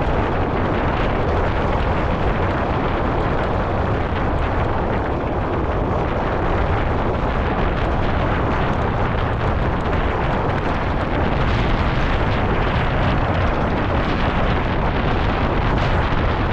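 Wind buffeting the camera microphone during a fast downhill mountain-bike run, a loud steady rumble with the tyres and bike rattling over the dirt trail beneath it.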